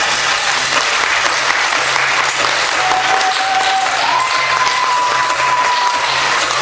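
Audience applauding steadily, with a single held high tone over it that steps up in pitch about four seconds in.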